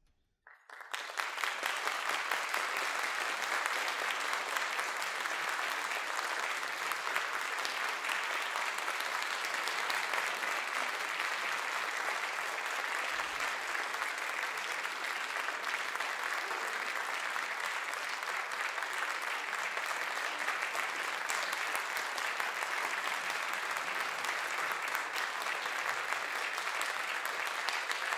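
Audience applauding, starting suddenly out of near silence about half a second in and then holding steady.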